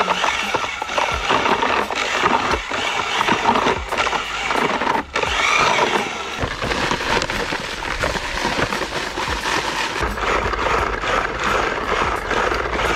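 Mortar being mixed: a continuous gritty scraping and churning, its strokes uneven.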